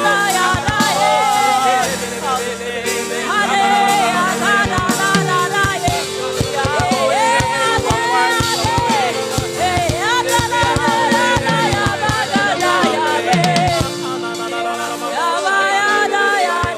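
Gospel worship music: voices singing a flowing melody over sustained keyboard and bass notes, with a drum kit keeping the beat.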